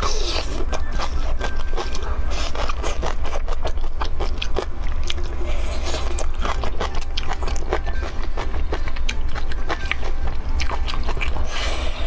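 Close-miked eating sounds: slurping and chewing wide, sauce-coated flat starch noodles, with many wet mouth clicks and smacks. Louder slurps come at the start, about six seconds in and near the end, over a steady low hum.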